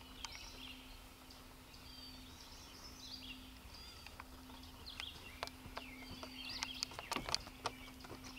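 Faint songbirds chirping and calling, with a faint steady low hum underneath and a few sharp clicks in the second half.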